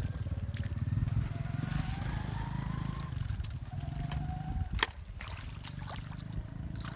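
Hands sloshing and squelching in shallow muddy water as fish are groped for, over a steady low motor rumble with a faint whine that rises in pitch. A sharp slap about five seconds in.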